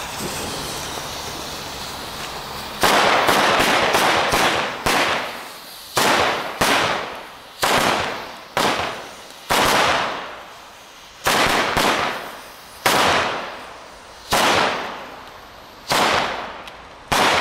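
Comet 24-piece firecracker chain going off: the fuse hisses for about three seconds, then the crackers bang one after another at irregular intervals, sometimes two in quick succession, each bang trailing off over about a second.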